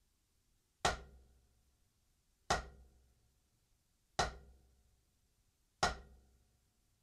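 Four single full strokes with one drumstick on a practice pad: the stick is dropped from high and let rebound, one evenly spaced hit about every second and a half, each dying away quickly.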